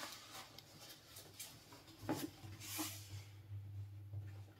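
Faint rustling and a few light knocks from things being handled, over a steady low hum.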